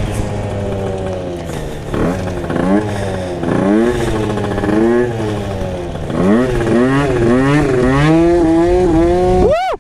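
Tuned Yamaha Aerox scooter's two-stroke engine with a 70 cc Racing MK2 cylinder kit, revved hard in repeated rising and falling throttle blips as the rider tries to lift the front wheel into a wheelie. A last steep rev near the end cuts off suddenly.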